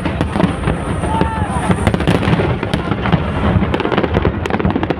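Aerial fireworks display going off without pause: a deep continuous rumble of shell bursts with sharp crackling pops on top.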